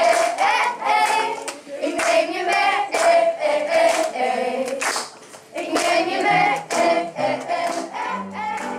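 Children's choir singing together with hand clapping in time, about two claps a second. The singing dips briefly about five seconds in, then resumes.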